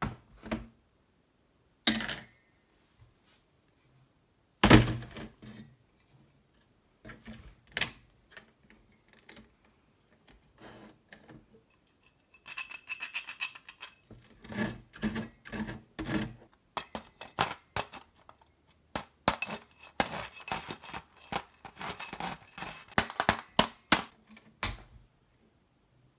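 Hard objects being handled and set down: scattered knocks and clinks, a loud thunk about five seconds in, then a dense run of clicks and clatter from about twelve seconds on.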